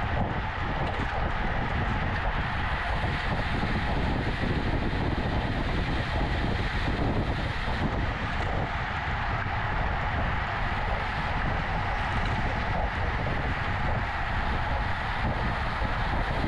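Steady wind rush buffeting the microphone of a road bike ridden at race speed.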